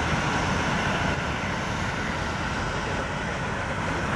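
Boeing 737 airliner's jet engines running at approach power as it comes in to land: a steady jet noise that holds at the same level.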